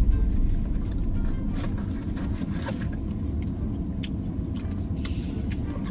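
Road noise inside a moving car's cabin: a steady low rumble, with scattered light clicks and rustles over it.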